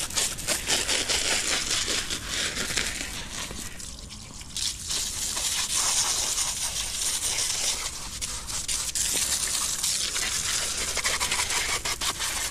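Garden hose spraying water over a road bike and splashing on wet paving stones, a steady hiss that drops briefly about four seconds in.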